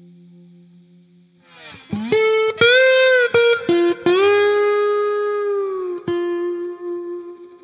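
Background music: an electric guitar with effects playing a short phrase of sliding, sustained notes that ends on one long note dying away.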